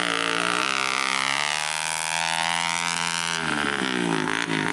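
Single-cylinder Bajaj Boxer motorcycle engine breathing through a fitted tractor silencer, revving hard as the bike spins its rear wheel in loose dirt and pulls away. The engine note holds high and fairly steady, then dips and climbs again about three and a half seconds in.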